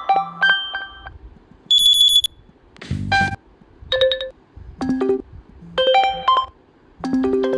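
Ringtones on a OnePlus Nord CE3 5G previewing one after another, each cut off after a second or less as the next is picked. Short melodic chimes, a high steady beep about two seconds in and a brief noisy burst around three seconds in.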